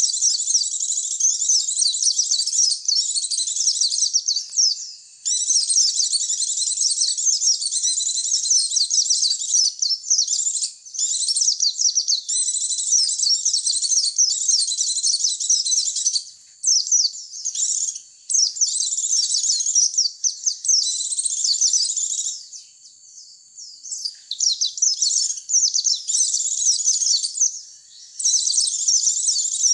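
White-eye (pleci) lure recording: fast, high-pitched twittering song in phrases of several seconds, broken by short gaps, with a longer pause a little past the middle.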